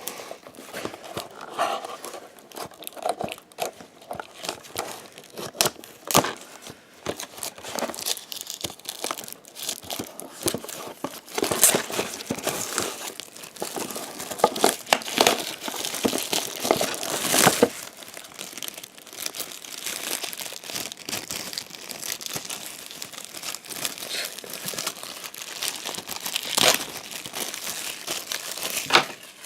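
Packaging crinkling and tearing as items are pulled out of a trading-card collector's box, a continuous crackle of sharp rustles that grows busiest about halfway through.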